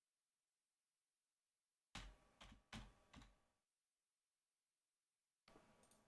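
Near silence broken by faint, short clicks: four about two seconds in and a few more near the end. These are typical of computer mouse clicks.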